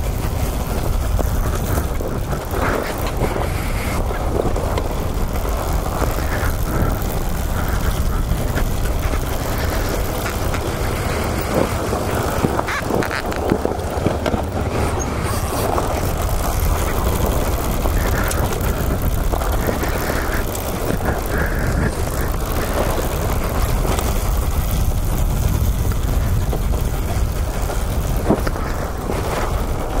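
Dirt bike engine running steadily as the bike rides along a dirt single-track trail.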